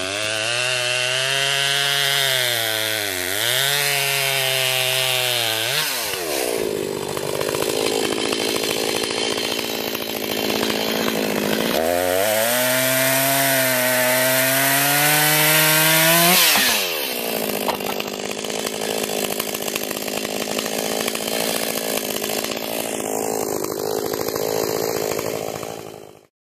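Echo two-stroke chainsaw cutting through a snow-covered fallen tree, revved high from the start to about six seconds in and again from about twelve to seventeen seconds, its pitch dipping as the chain bites. Between and after the cuts it drops back to a lower idle, and it fades out at the very end.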